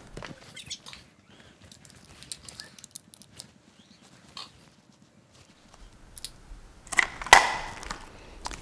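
Small clicks and handling noises as a LiPo battery's power connector is pulled apart and the battery is handled on a wooden bench. A faint high-pitched beeping comes and goes around the middle, and there is a louder rustle and clatter with a sharp knock about seven seconds in.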